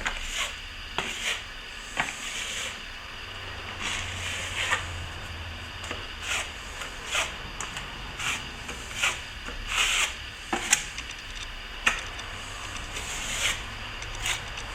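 Plastering trowel scraping and smoothing plaster on a wall patch: a string of short, irregular scraping strokes, about one or two a second.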